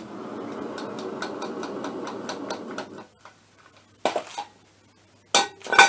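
A rattling mechanical buzz lasting about three seconds, then sharp metallic knocks and clinks about four seconds in and again near the end. These come as the heated aluminium crankcase half of a scooter engine is fitted over the crankshaft bearing and seated.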